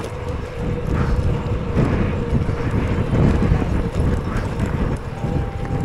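Wind buffeting the microphone over the rumble of bicycle tyres on the road during a ride, a steady rushing noise with a faint steady tone in it.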